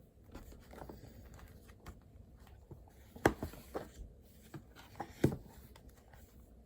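Scattered light knocks and taps of objects being handled and set down on a desk, with two sharper, louder knocks about three and five seconds in.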